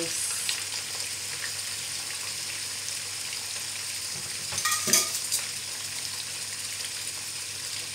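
Milkfish (bangus) steaks frying in shallow cooking oil in a nonstick wok: a steady sizzling hiss, with a brief louder burst about five seconds in.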